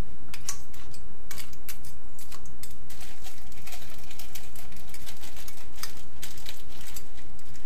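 A slotted steel spatula stirring crab pieces in masala in a metal kadai, clinking and scraping against the pan and knocking the shells in quick irregular clicks. A steady low hum runs underneath.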